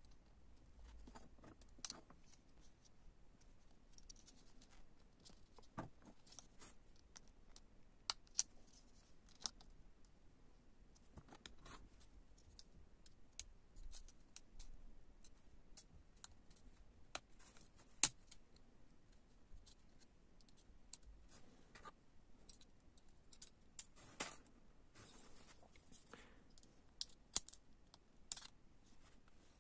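Sparse small clicks and faint scratches of hands working the plastic housing of an OBD diagnostic connector open to reach its coin-cell battery, with one sharper click just past the middle.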